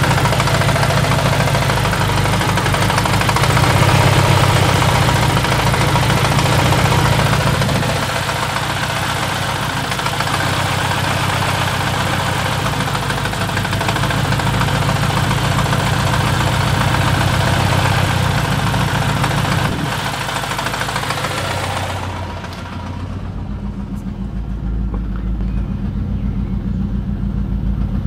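Saab 9-3's Ecopower turbocharged four-cylinder engine running steadily at idle. About 22 seconds in, the sound turns duller and loses its hiss and high end, as heard from inside the cabin.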